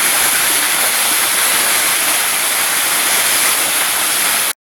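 Small waterfall pouring into a pool: a loud, steady rush of falling water that cuts off abruptly near the end.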